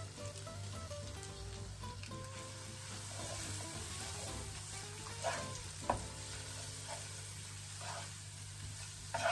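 Chicken, sliced red onion and spices sizzling steadily as they fry in a pan, stirred with a wooden spoon. A few short knocks and scrapes of the spoon against the pan come about halfway through and near the end.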